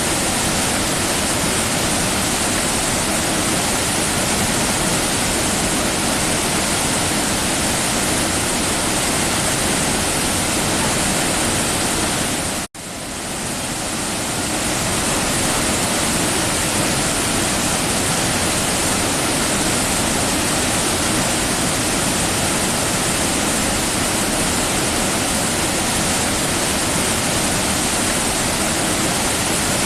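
Waterfall: falling water making a steady, loud rushing noise. A little before halfway it cuts out for an instant and swells back in over about a second.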